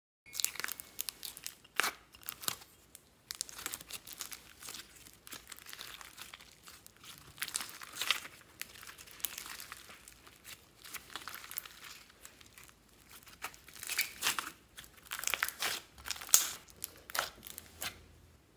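Glossy slime with soft clay pieces mixed in, squished, stretched and folded by hand: irregular sticky crackling, popping and tearing, with a louder run of pops near the end.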